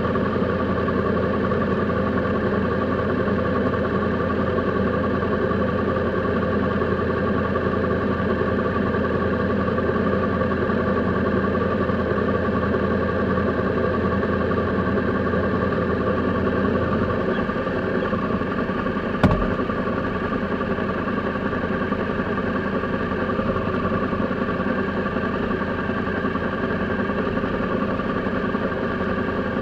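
Triumph Sprint's three-cylinder engine idling steadily while the motorcycle stands still, with one sharp click about two-thirds of the way through.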